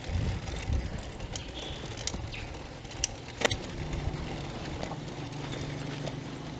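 Bicycle rolling over a rutted dirt road: a low rumble under irregular sharp clicks and rattles as the bike jolts over bumps. About halfway through, a steady low engine hum sets in.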